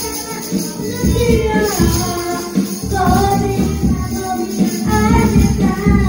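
Karaoke backing track playing loudly, with a hand tambourine shaken along to the beat and a child singing into the microphone.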